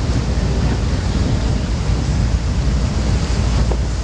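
Steady wind rumble on the microphone at the bow of a powerboat under way, with water rushing along the hull.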